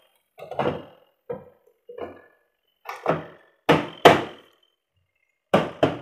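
The plastic top panel of a Polytron twin-tub washing machine being pressed and knocked into place by hand: a series of about eight irregular clunks and knocks, the loudest two close together about four seconds in.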